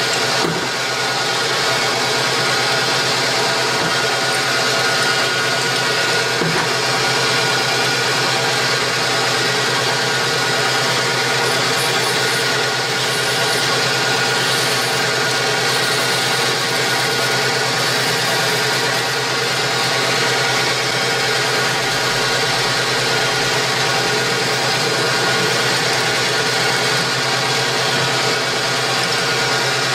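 Metal lathe running at a steady speed while a twist drill held in the tailstock bores into the spinning workpiece: an even, unchanging mechanical hum.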